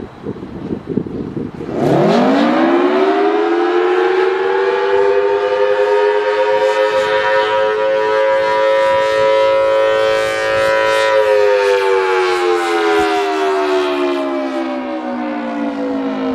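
Federal Signal Thunderbolt 1000T dual-tone civil defense siren (4/5-port rotor) beginning its Attack signal. Wind rumbles on the microphone, then about two seconds in the siren winds up fast to a loud, steady two-tone chord a major interval apart. About eleven seconds in it starts sliding slowly down in pitch on the first rise-and-fall cycle of the wail.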